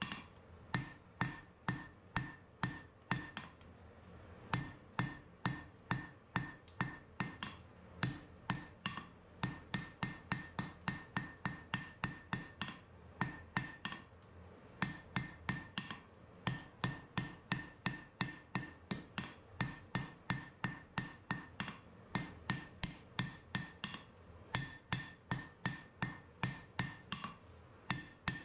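Hand hammer striking red-hot steel on an anvil, forging the blade of a winged spearhead: a steady run of blows, about two to three a second with a few short pauses, each with a bright anvil ring.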